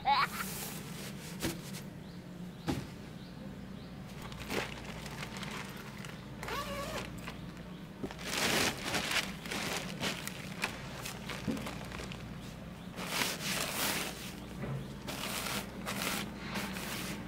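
Fabric and nylon carry bag of a folded pop-up tent rustling as the tent is packed into its bag, in irregular bursts that are loudest about halfway through and again later.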